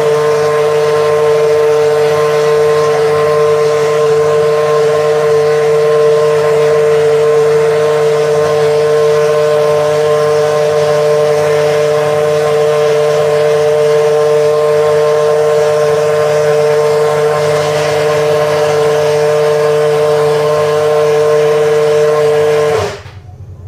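Caterham T127 Formula One car's Cosworth 2.4-litre V8 running loud at a steady high idle during its warm-up, its pitch holding level with no revving. The engine is switched off abruptly near the end.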